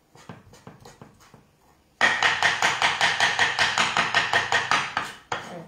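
Kitchen knife chopping raw salmon on a wooden cutting board: a few light taps, then about two seconds in a sudden loud run of fast, even strokes, about six a second, lasting some three seconds.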